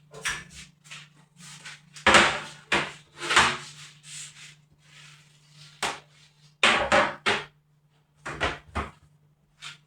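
Household cleaning: a string of irregular knocks, clatters and rubbing as things are handled and set down on hard surfaces, the loudest about two to three and a half seconds in and again near seven and eight and a half seconds in. A low steady hum runs underneath.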